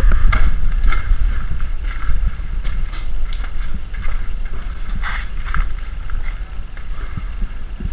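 Low rumble of wind buffeting a helmet-mounted action camera's microphone, with scattered light clicks and knocks.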